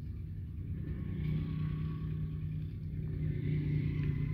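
Kitten growling in a low, steady rumble over the mouse it is eating, a little louder from about a second in.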